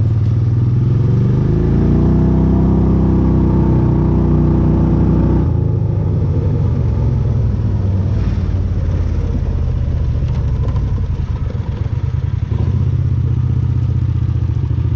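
A vehicle engine running. It rises in pitch about two seconds in, holds there, then drops back to a rougher, lower note about five and a half seconds in.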